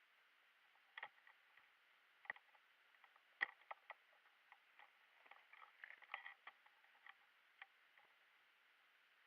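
Faint, irregular clicks and crackles, a dozen or so scattered and unevenly spaced, the loudest about three and a half seconds in.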